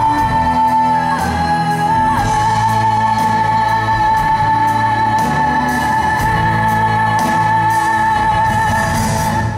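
Female pop singer belting one long, high sustained note with vibrato into a microphone, held for about eight seconds over a live band with a steady beat.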